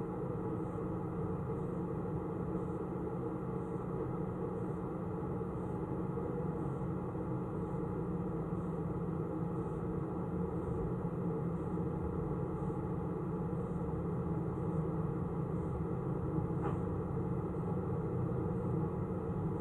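Steady mechanical hum with several held tones and a faint high tick repeating about once a second.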